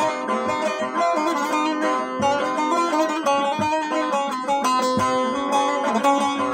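Bağlama (long-necked Turkish saz) played solo: a plucked melody of quick, changing notes with no singing.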